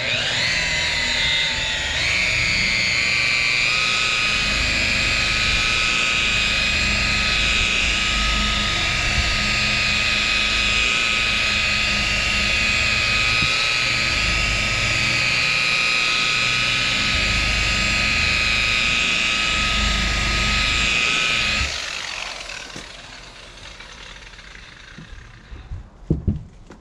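Electric rotary polisher with a wool pad buffing car paint to remove 1500-grit wet-sanding marks. Its motor whine climbs in pitch as it spins up over the first two seconds, then holds steady. It winds down and stops about 22 seconds in.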